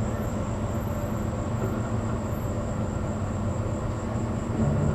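Pickup truck engine running steadily at low speed.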